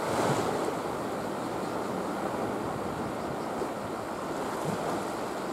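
Steady wash of seawater along a harbour breakwater, an even rushing noise with no distinct splashes.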